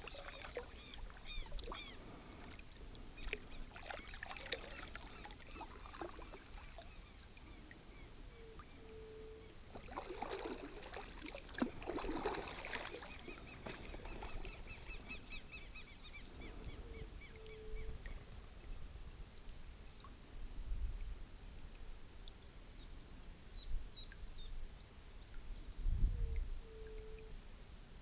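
Outdoor creek soundscape heard from a kayak: a steady high-pitched insect drone, scattered bird chirps, and a short low call that comes three times, about nine seconds apart. Paddle and water splashes cluster around the middle.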